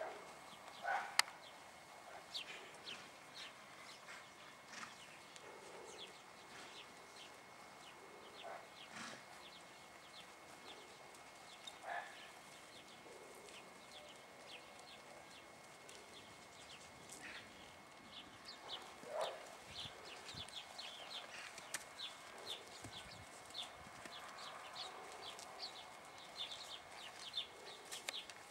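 Small birds chirping over and over, with a few louder animal calls scattered through, about a second in, near the middle and around two-thirds of the way through.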